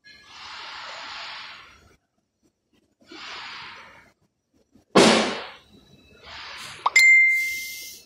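Metal tools and engine parts handled during an engine teardown: several short bursts of hiss, a heavy knock about five seconds in, then a sharp metal strike near the end that rings on with a clear tone for about a second.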